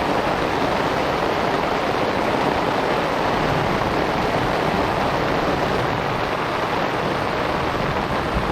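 Heavy rain pouring down in a thunderstorm, a steady dense hiss.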